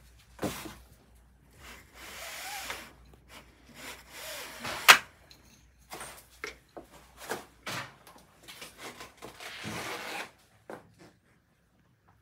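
Pleated window blinds being slid by hand: short rubbing, sliding rushes as the pleated fabric and its bar move along the guide cords, with scattered clicks of the handle and fittings and one sharp click about five seconds in.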